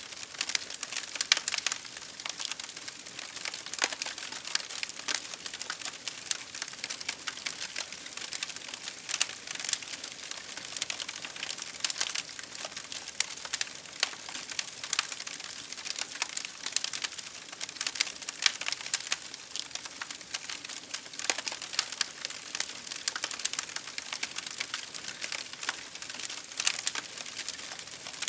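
Wood fire crackling: many irregular sharp pops and snaps over a steady hiss.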